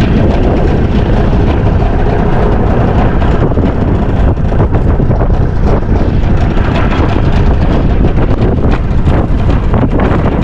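Wind buffeting the microphone on an open boat at sea: a loud, steady rumble with no letup.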